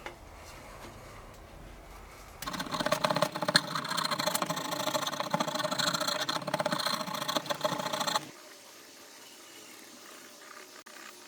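A workshop power tool running for about six seconds, with a fast rattling texture; it starts and stops abruptly, with low room tone either side.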